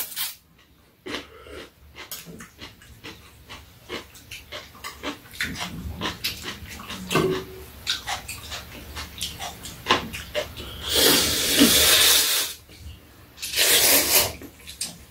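Two people eating janchi guksu noodles: many short clicks and smacks of chopsticks and chewing, then two long, loud slurps of noodles near the end.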